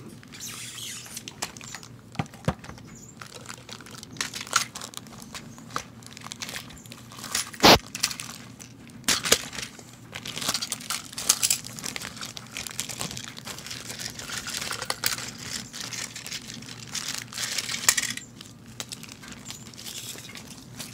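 Toy train packaging being handled and opened: crinkling, rustling and tearing with scattered clicks, one sharp click about seven and a half seconds in.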